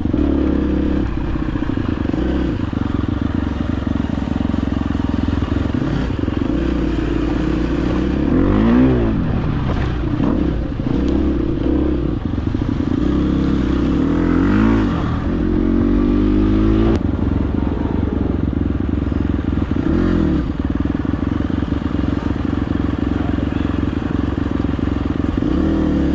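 Dirt bike engine under way, revving up and down with the throttle, with quick rises and falls in pitch several times.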